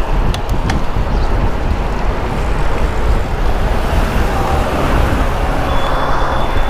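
Traffic and road noise heard from a bicycle moving at speed, with heavy wind rumble on the microphone and passing cars. A couple of sharp clicks come just after the start.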